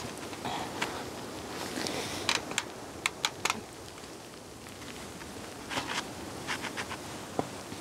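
Irregular light clicks and taps from hands patching a hole in an old iron railing fence, in two short clusters over a steady background hiss.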